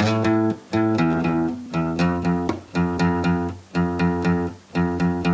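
Background music: acoustic guitar strumming chords in a steady rhythm, with no singing.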